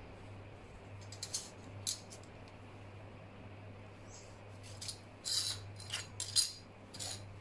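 Metal scriber scratching marking lines onto small plates of 1.2 mm mild steel: a series of short, sharp scrapes, more of them and louder in the second half.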